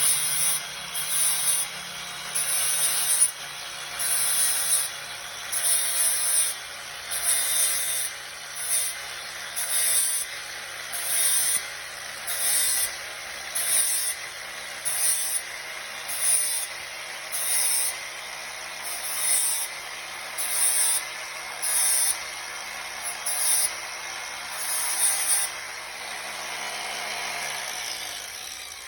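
Electric grinder running steadily while its wheel is drawn along the cutting edges of hedge trimmer blades in short repeated passes, a burst of metal-grinding hiss about once a second. Near the end the grinder's motor spins down.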